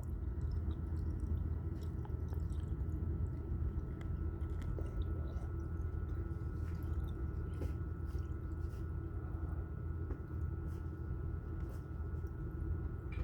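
Water poured from a bottle into an HVAC condensate drain pan, with faint irregular wet glugging and splashing as it runs toward the drain, over a steady low hum.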